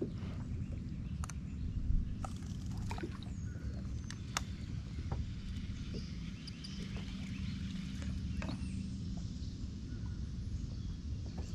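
Electric trolling motor humming low and steady, with scattered light clicks and knocks from gear being handled in the boat.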